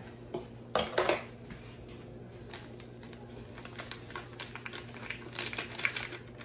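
Ranch dip mix packet crinkling and rustling as it is shaken out over a stainless steel mixing bowl, with many small crackling clicks over the last couple of seconds. There are a couple of sharp clicks about a second in.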